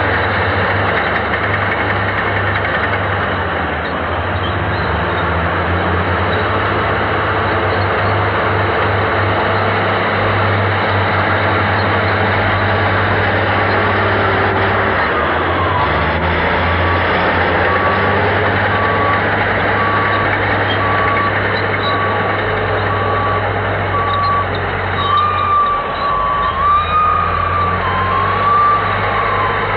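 Diesel engine of a motor grader running steadily under work. From about halfway a reversing alarm sets in, beeping evenly.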